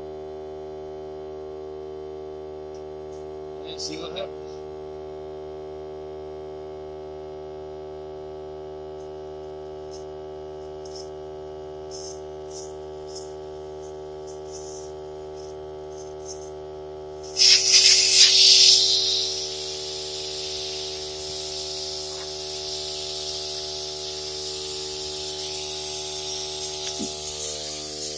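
Hart 20-volt cordless 2-gallon air compressor running with a steady hum. About seventeen seconds in, a loud hiss of air bursts from the car tyre's valve as the air is let out, easing after a second or two to a steady hiss.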